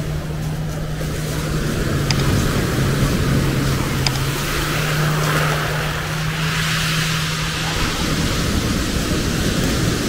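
A steady engine hum over the wash of waves coming ashore; the waves swell louder around the middle, and the hum stops about eight seconds in.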